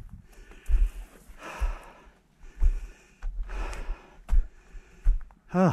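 A person breathing hard close to the microphone, a breath about once a second, winded from climbing over steep, rocky ground, with low thumps between the breaths.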